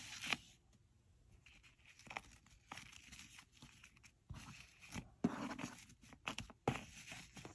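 Faint rustling and scratching of fingers working the ribbon and camellia flower on a cardboard gift box to untie it, with a few soft ticks in the second half.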